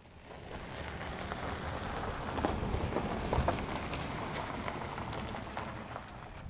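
Crunching and rustling of footsteps through dry grass and gravel: a dense crackle of small snaps that starts suddenly and holds fairly steady.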